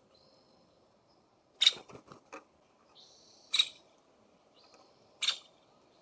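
Birds calling at a feeder: three loud, sharp call notes about two seconds apart, with a few smaller ones after the first and faint thin high chirps between them.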